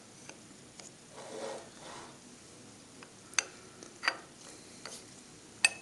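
Metal engine parts being handled and fitted together by hand: a soft scrape, then three sharp metallic clicks in the second half.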